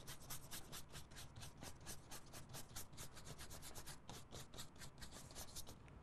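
Paintbrush scrubbing paint onto a paper file folder in quick back-and-forth strokes, several a second, filling in a large area. A faint, dry rubbing.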